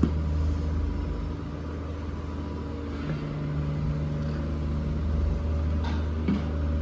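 A steady low mechanical hum, with a few faint knocks.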